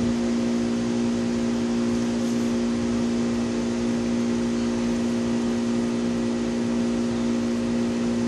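A machine humming steadily at one low pitch, with a few higher fixed tones above it over an even hiss; it does not change.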